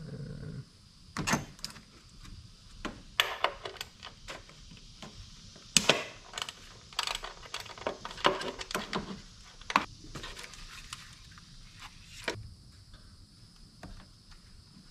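Metal hand tools and plastic wiring-harness clips clicking and rattling irregularly as parts under the hood are worked loose.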